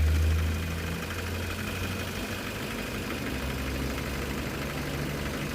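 Car engine idling steadily, a low hum that eases down slightly about a second in.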